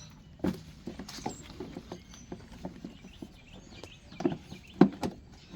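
Irregular plastic clicks and knocks from the Honda Accord's air filter housing being handled as its retaining clips are pushed in and popped up, with a few sharper knocks about half a second in and again about four and five seconds in.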